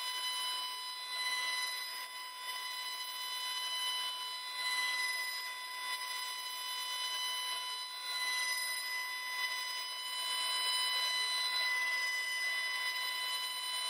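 CNC router running a cut with a steady high-pitched whine, its 1/2-inch ball-nose bit carving a turning Douglas fir leg on the rotary axis, with a light hiss of cutting underneath.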